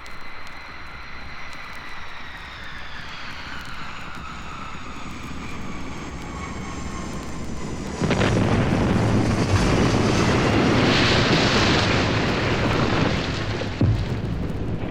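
Sound-effect plane crash. An aircraft engine whines as it falls in pitch while the plane dives, then a sudden loud crash about eight seconds in turns into a sustained roar of wreckage and noise. A sharp bang comes near the end.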